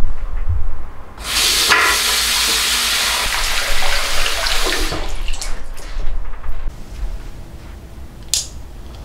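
A dull thump, then water running from a tap for about four seconds, followed by a few light clicks and one sharp click near the end.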